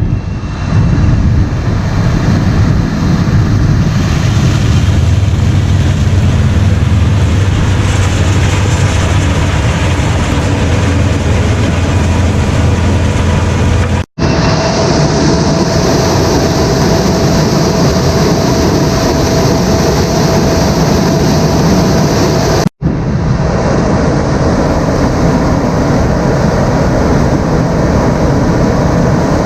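Heavy farm machinery running steadily at working speed during a corn harvest, a loud, deep engine drone. It comes in three segments split by abrupt cuts. In the later segments a steady whine sits above the drone.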